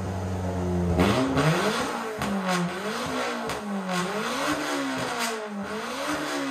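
Engine revving up and down over and over, its pitch rising and falling about once a second, with a few sharp clicks.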